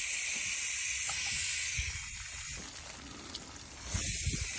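Steady hiss of pressurised water spraying from a leaking grey polybutylene supply line after the water is turned back on. The pipe has split.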